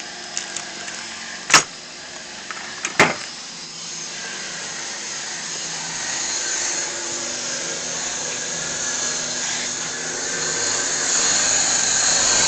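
Two sharp clicks, then a power tool runs steadily, polishing a brass .50-calibre cartridge case, and grows gradually louder.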